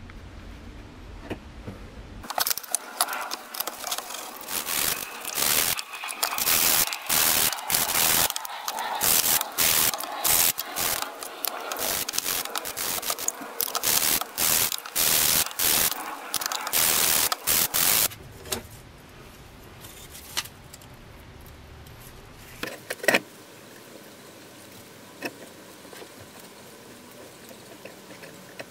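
A wire brush scrubbing rusty metal in a tub of liquid, wet and rough in quick back-and-forth strokes that stop after about fifteen seconds. After that come a few small clicks and one sharp knock.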